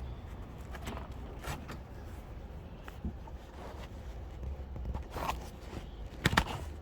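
Seat belt webbing being worked through a retractor with a small hook: scattered scrapes and rustles of the belt and light clicks of metal on plastic, with two sharper clicks near the end.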